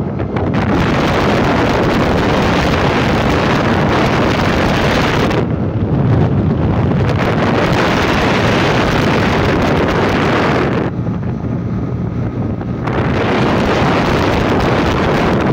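Wind rushing and buffeting over a phone's microphone on a moving motorcycle, a loud steady roar of air and road noise that eases twice, about six seconds in and again around eleven seconds.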